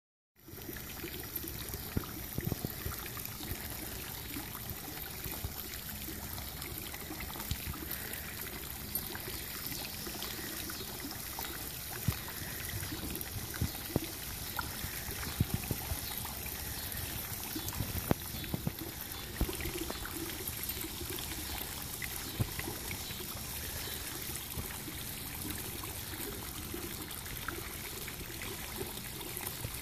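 Water from a home-built fountain's PVC pipe jets spraying and pouring into a shallow plastic kiddie pool, a steady trickling splash. A few brief sharper splashes stand out now and then as puppies paw at the water.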